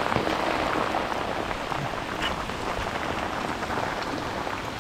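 Heavy rain falling on a river's surface: a steady, dense hiss of drops with scattered sharper ticks.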